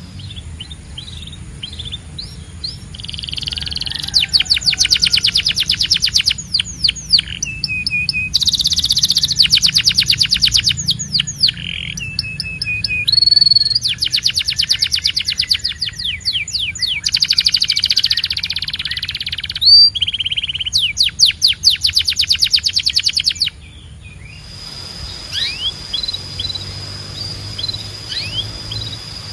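Domestic canary singing: fast trills of rapidly repeated notes in changing phrases, broken by short held whistles. The song drops off about three quarters of the way through and goes on softer, with scattered chirps over a steady high whistled note.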